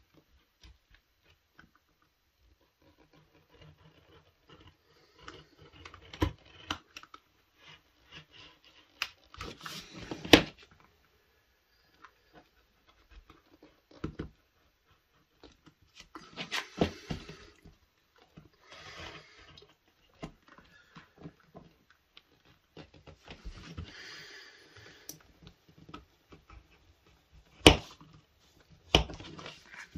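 Hand leatherworking at a bench: scattered sharp taps and clicks of tools on leather and the work surface, with rustling and scraping as the leather is handled.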